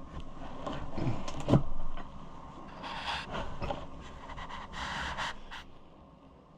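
Hands handling small parts at a workbench: light clicks, a sharper knock about a second and a half in, and a few short hissing rustles.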